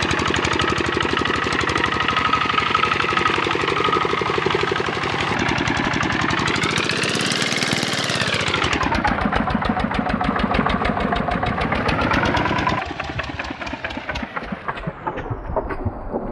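Kubota RD65 single-cylinder diesel on a hand tractor running with a heavy, knocking beat. It revs up about six seconds in and drops back. About thirteen seconds in it goes quieter and its beat slows and turns uneven, as if winding down to a stop.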